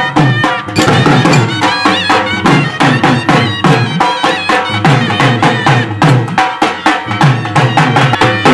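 Dhol, shehnai and masak (Indian bagpipe) band playing a fast folk dance tune. Quick, even drum beats run under a reedy melody with sliding ornaments over a steady low drone.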